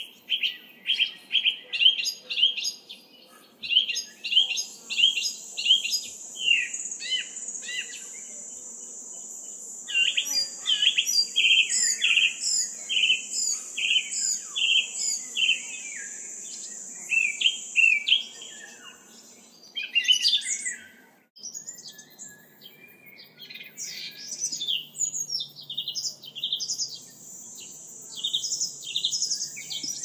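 Small songbirds chirping and singing in quick repeated notes, with a high, steady buzz behind them for much of the time. About two-thirds of the way through the sound cuts out briefly and a different recording of chirping birds starts.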